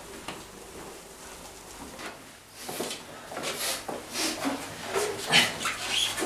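Rustling and scuffling of clothes and rope as a bound, hooded captive shifts in a chair: irregular scrapes and rubs that start about two and a half seconds in and grow busier.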